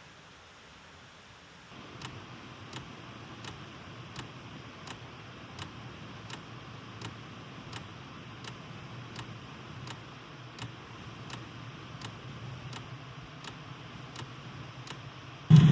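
Portable diesel air heater starting up and running: the blower hums steadily while the fuel dosing pump ticks about once every 0.7 seconds. Right at the end a much louder low running sound cuts in suddenly.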